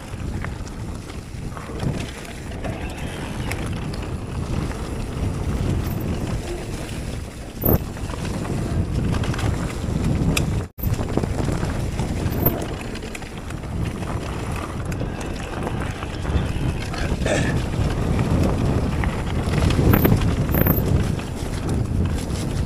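Focus Jam2 electric mountain bike rolling fast down a leaf-covered dirt trail: steady rumble of the knobby tyres on the ground and rattle of the bike, with wind buffeting the microphone. A few sharp knocks as it hits bumps.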